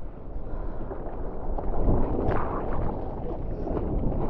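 Rushing, splashing whitewash around a surfboard, heard close up through an action camera at water level, with wind on the microphone; the rush swells about halfway through.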